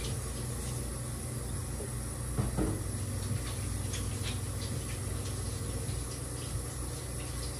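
A steady low mechanical hum with a hiss, and a few light knocks and clatters from things being handled at a kitchen sink, about two and a half and four seconds in.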